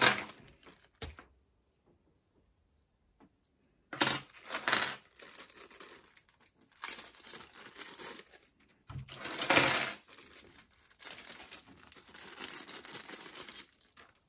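Plastic packaging rustling and crinkling, with light clicks and taps of small plastic parts, in several bursts separated by quiet gaps: keyboard accessories such as spare keycaps being unpacked.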